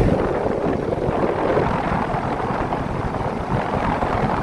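The outdoor condenser unit of a Trane central air conditioner is running. Its Genteq condenser fan blows a steady rush of air, and the air buffets the microphone with low rumbling.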